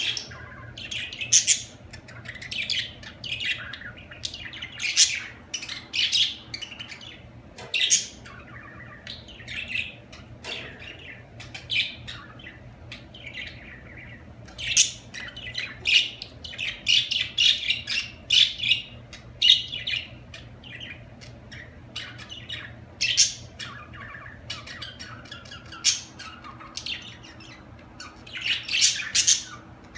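A flock of budgerigars chirping and squawking in irregular quick bursts of short high calls, with a faint steady low hum underneath.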